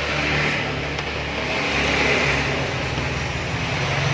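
A motor running steadily with a low hum and a hiss, swelling slightly in loudness and easing again.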